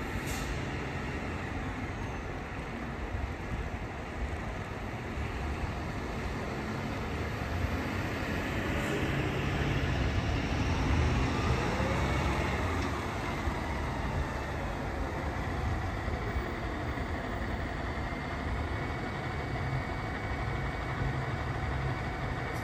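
A fire engine's engine running as the truck pulls slowly out of the station bay. It makes a steady low rumble that grows louder around the middle.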